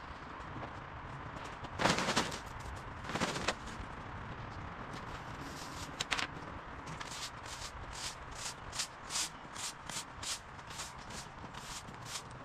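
A few scraping knocks as gear is set down on concrete, then from about seven seconds in a steady run of short swishing strokes, about three a second: a stiff-bristled push broom sweeping debris across a concrete driveway.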